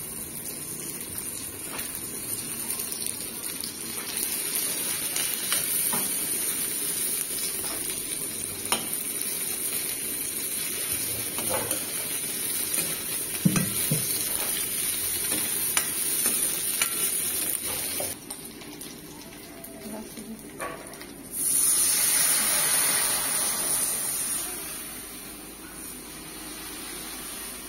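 Onion and green chilli sizzling in hot oil in an iron wok, a metal ladle stirring and scraping with scattered clicks against the pan. About three-quarters of the way through the sizzle swells louder for a few seconds, then settles back.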